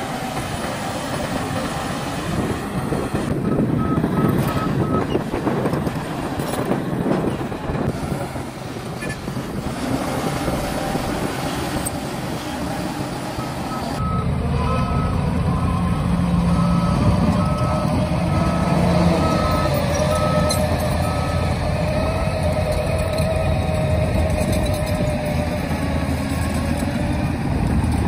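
Heavy diesel engines running: first a Shantui DH17 C2 bulldozer working soil, then, after a change about halfway through, a dump truck's engine with a steadier, deeper note. A reversing alarm beeps briefly a few seconds in and again at a steady pace for several seconds after the change, over a wavering whine.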